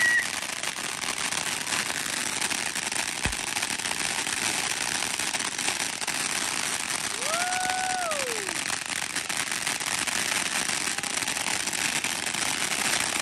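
Fireworks crackling continuously, a dense rapid patter of small pops, with a single low thump about three seconds in.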